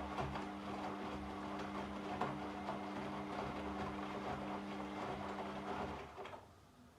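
Washing machine running a wash cycle: a steady motor hum with laundry tumbling and knocking in the drum, which stops about six seconds in as the drum comes to rest.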